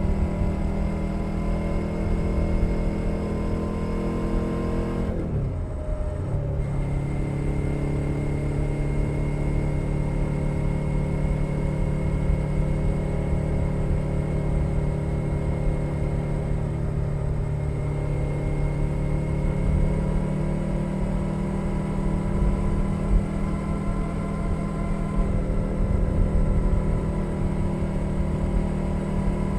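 2021 Suzuki SV 650's 645 cc V-twin engine running through a Leo Vince Nero exhaust, heard from under the seat while riding. About five seconds in the revs fall, then the engine settles at a lower, steady pitch.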